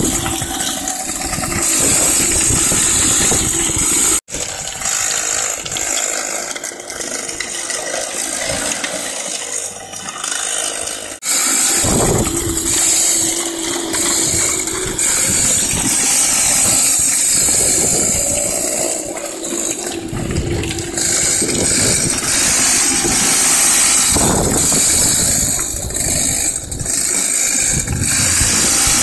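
Comer 50 two-stroke racing go-kart engine running and revving up and down as the kart drives, its speed heavily restricted. The sound cuts out for an instant about four seconds in.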